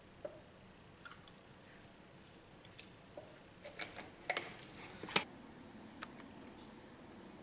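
Scattered light clicks and taps of a plastic coffee-creamer bottle and its cap being handled and closed over a glass of iced coffee. The clicks come thickest in the second half, with the loudest knock about five seconds in.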